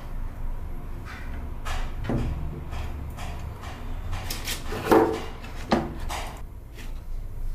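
Handling noise from a 13-inch iPad Pro and its cardboard packaging: scattered light clicks, rubs and knocks, the loudest about five seconds in, over a low steady hum.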